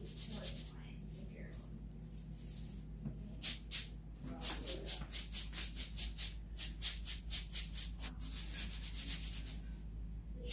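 Dry flattened green rice flakes (cốm dẹp) rattling as they are shaken, in a quick even rhythm of about three shakes a second that starts a little before halfway and stops near the end, after two single shakes.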